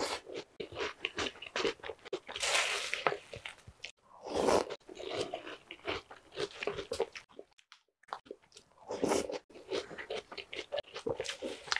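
Mouth crunching and chewing Jolly Pong puffed-wheat cereal with Oreo cookies in milk: a dense run of quick crunches, with a few louder bursts of crunching.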